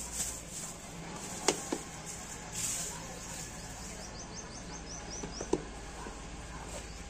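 Thin plastic bags crinkling as a pair of sneakers is pulled out and handled, with two sharp knocks, one about a second and a half in and one about five and a half seconds in. A little past the middle, a bird gives a quick run of small rising chirps.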